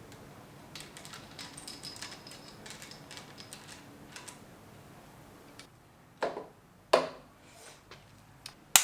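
Light metallic clicking and rattling of small engine parts being handled, followed by three sharp metal knocks with a short ring near the end.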